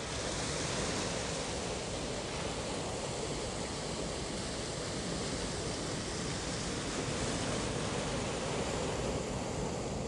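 Small waves washing onto a sandy beach: a steady, even rush of surf.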